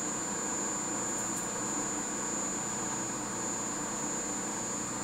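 Pratt & Whitney Model C lathe running steadily through a facing cut on a 6-inch steel bar, an even mechanical hum with a steady high whine over it.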